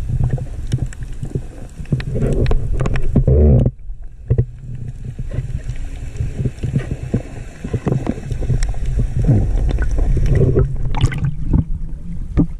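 Water heard through an underwater camera's housing: a low rumble with many scattered clicks and knocks and a few short gurgling patches. It drops away sharply a little under four seconds in, then builds back.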